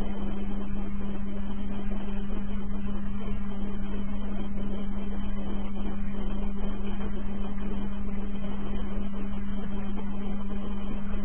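Steady low hum at one constant pitch over an even background hiss, with no other event.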